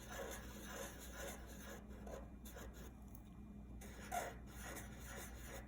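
A drawing tool scratching on paper in short repeated strokes, several a second, as the eyes of a cat drawing are sketched, with a stronger stroke about four seconds in, over a faint steady low hum.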